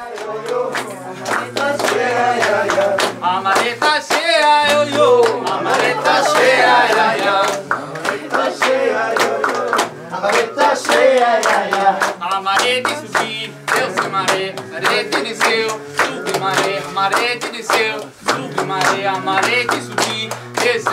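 A group of voices singing together, echoing in a cave, over a low held drone, with hands clapping a steady rhythm.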